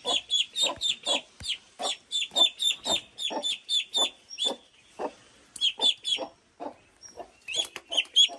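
Call duck duckling peeping loudly and repeatedly, about three short, high, falling peeps a second with a couple of brief pauses: the distress calling of an anxious duckling.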